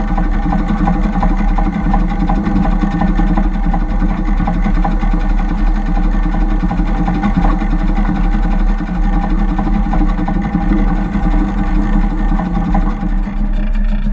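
Seven-and-a-quarter-inch gauge miniature locomotive running along the track: a steady, rapid mechanical clatter over a constant low hum, with wheels clicking on the rails. About a second before the end the sound turns duller.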